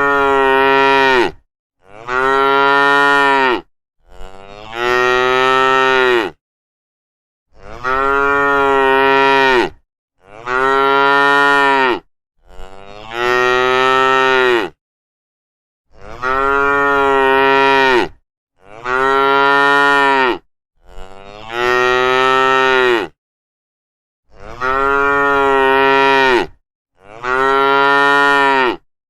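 Cattle mooing: a string of about eleven long moos, each lasting about two seconds, with dead silence between them.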